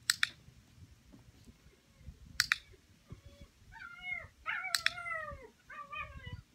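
A dog-training clicker clicks three times, about two and a half seconds apart, each a sharp double click. In the second half a nine-week-old puppy whines in three short cries that fall in pitch.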